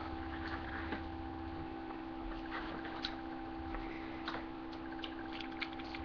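A few light clicks and taps from a vape mod and its atomizer being handled, scattered over a steady electrical hum.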